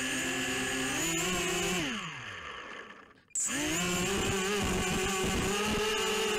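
Brushless motors of a ZMR180 racing quadcopter whining with several close pitches as they spin up, then winding down with a falling pitch about two seconds in. A moment of quiet follows before they spin up sharply again and hold steady.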